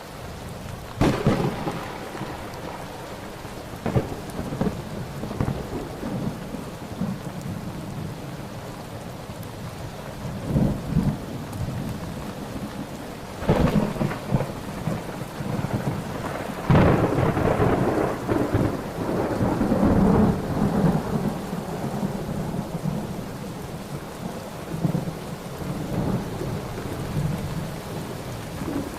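Thunderstorm: steady heavy rain with repeated thunder, sharp claps about a second in and at four seconds, more around ten and thirteen seconds, then a long rolling peal from about seventeen to twenty-one seconds, the loudest of them.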